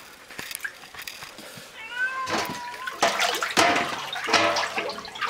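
A stranded domestic cat meowing: one gliding meow about two seconds in, then louder, harsher cries, with water splashing as someone wades through the flood.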